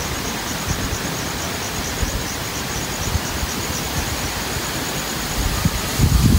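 Wind buffeting a phone microphone outdoors: a steady hiss with a fluttering low rumble that gets stronger near the end. A faint high-pitched chirp repeats about four times a second underneath.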